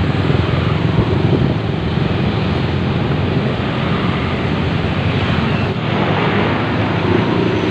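Busy road traffic passing close by: car and motorcycle engines running and tyre noise in a steady wash, with wind buffeting the microphone.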